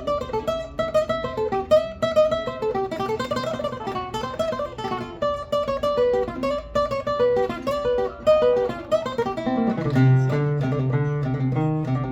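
Requinto, a small high-tuned Mexican guitar, played solo: a quick plucked single-note melody, changing about ten seconds in to strummed chords with strong bass notes.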